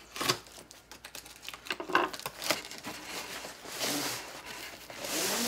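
Cardboard shipping carton being opened and handled: crinkling, clicks and a few sharp knocks, then a scraping slide as a cardboard inner box is pulled out of it near the end.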